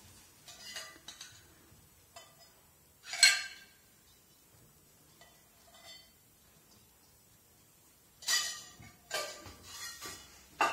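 Kitchenware clinking: a few sharp, briefly ringing clinks of utensils and containers, the loudest about three seconds in and several more close together near the end.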